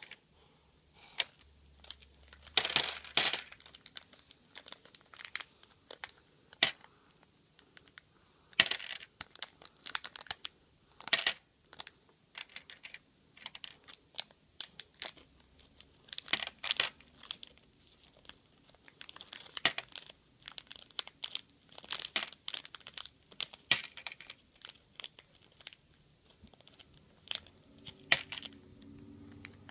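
Handling of candy on a plastic Lego baseplate: scattered crinkles of plastic candy wrappers and small clicks of jelly beans being set down, in short irregular bursts.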